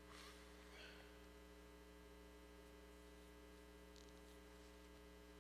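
Near silence with a steady, faint electrical mains hum.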